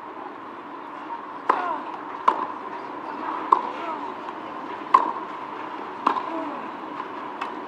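Tennis ball hits during a rally on a clay court: six sharp pops of racket on ball and ball on court, spaced about a second or so apart, over a faint crowd murmur.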